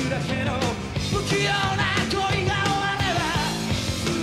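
A live rock band playing electric guitars and drums, with a male voice singing the lead.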